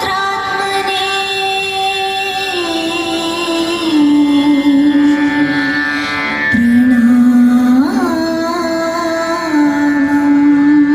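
South Indian classical-style music: a single melody of long held notes that step down in pitch, with a quick upward bend past the middle.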